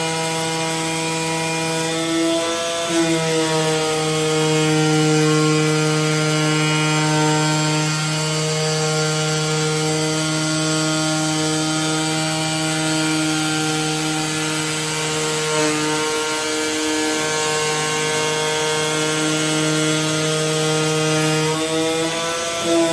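AOKE DCZ70 flatbed cutting plotter cutting a gasket sheet: a loud, steady machine buzz from the cutting head at work, dipping slightly in pitch a few times as the head changes course.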